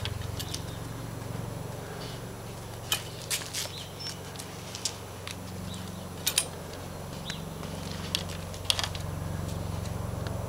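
Scattered sharp metallic clicks and clinks, several in close pairs, as dogs nose at a chain-link fence with a chain hanging nearby, over a steady low hum.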